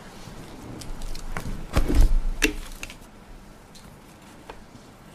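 Handling noise at a lectern with two close microphones: rustling papers and a few knocks, the loudest a dull bump about two seconds in.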